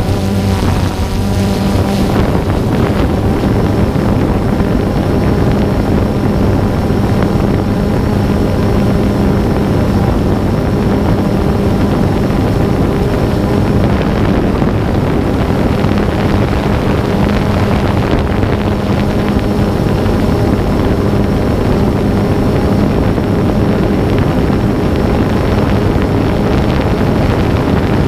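Quadcopter drone's motors and propellers buzzing steadily in flight, picked up by a microphone on the drone itself, mixed with wind rushing over the microphone. The pitch wavers a little in the first couple of seconds, then holds steady.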